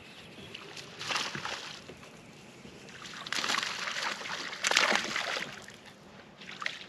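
A small hooked largemouth bass splashing at the water's surface as it is reeled in. The splashing comes in a short burst about a second in, then a longer, louder spell from about three to five and a half seconds.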